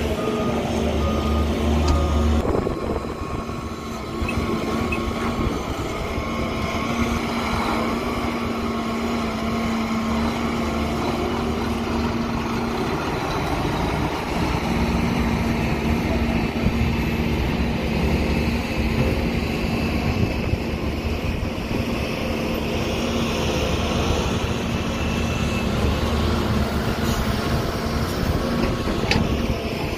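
Heavy diesel machinery running steadily: Doosan DX140W wheeled excavators working alongside dump trucks, giving a constant engine drone with a steady hum over a low rumble.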